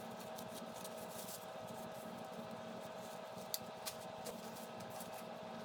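Quiet handling of the opened KitchenAid mixer's parts: light scraping and rubbing with two small clicks a little past halfway, over a faint steady hum.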